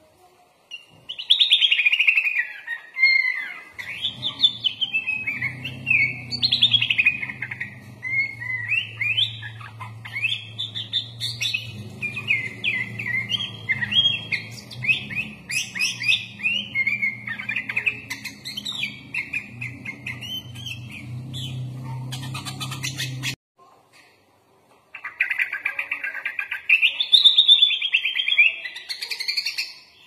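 Sooty-headed bulbul (kutilang) singing a long, fast run of varied chirping and trilling phrases, typical of a kutilang 'full isian' song packed with mimicked phrases. The song cuts off abruptly about 23 seconds in and starts again a second and a half later. A steady low hum runs beneath it until the cut.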